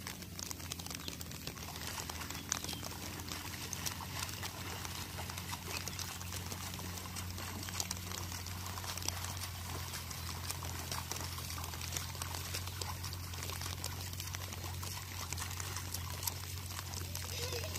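Rain falling on a flooded rice paddy: a steady hiss of many fine drop ticks on the water, with a steady low hum underneath.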